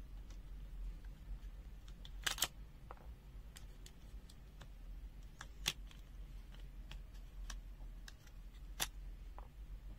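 Light clicks and taps of small plastic and metal parts being handled as a clamp meter is taken apart. Three sharper clicks stand out: a quick cluster about two seconds in, one a little before the six-second mark, and one near the end.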